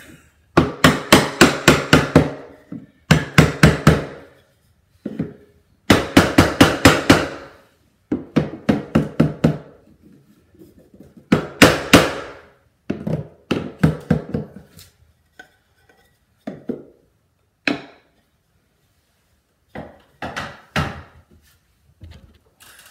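Hammer beating on a scrap wood block held against wooden crown molding, knocking the loose molding down into line. The blows come in quick runs, several a second, with short pauses between runs, and turn to a few lighter taps near the end.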